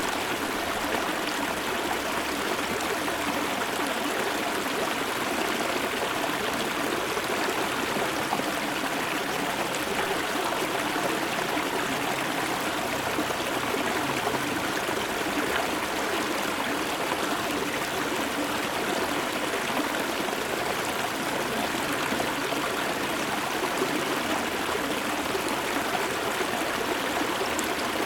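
Shallow river water flowing and trickling over stones, recorded close up: a steady, even rush.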